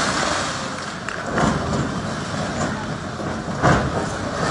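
SANY hydraulic excavator running as its bucket knocks down masonry stall walls: a steady engine under crashing and rattling debris, with a louder crash near the end.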